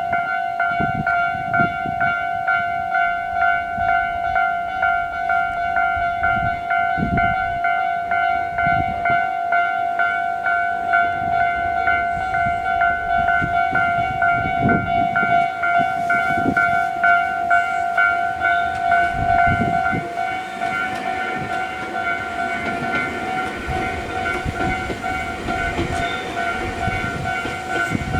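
Japanese level-crossing warning bell ringing in a steady, evenly pulsing pattern. About two-thirds of the way in, a train passing over the crossing rises under it with rumbling and wheel clatter.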